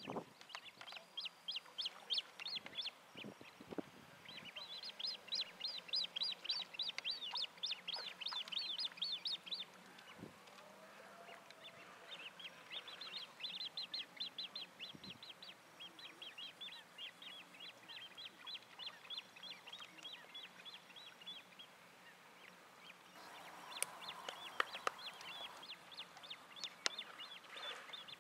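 Great crested grebe chicks begging: long runs of short, high-pitched peeping calls, several a second, with short pauses between runs, as an adult brings a fish.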